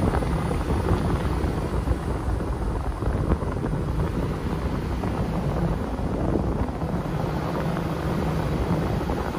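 A car driving along a paved road, heard from the vehicle: steady low engine and tyre noise.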